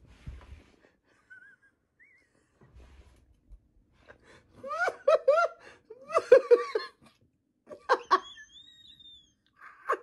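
A person laughing in quick, high-pitched bursts, with a gasping, wheezy squeal, starting about four seconds in after near quiet.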